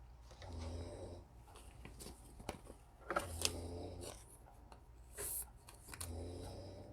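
A dog snoring faintly: three drawn-out snores about every two and a half to three seconds, with light clicks of cards being handled between them.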